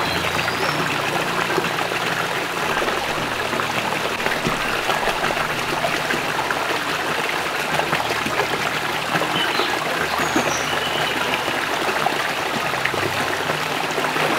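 Stream water running steadily, an even rushing wash.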